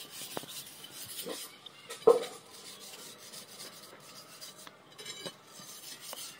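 A steel leaf-spring leaf being rubbed down by hand with an abrasive block, giving a light, irregular scraping with small ticks, and one louder short knock about two seconds in.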